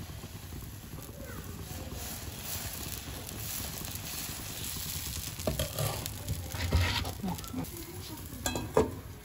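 Dosa batter sizzling on a hot nonstick tawa as a steel ladle spreads it round in circles. A few sharp metal clinks and knocks come in the second half, the last as a steel lid is set on the pan near the end.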